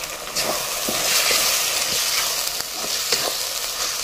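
Ground spice paste frying with onions in hot oil in a steel kadai. The sizzle swells from about a second in, while a metal spatula stirs and scrapes against the pan.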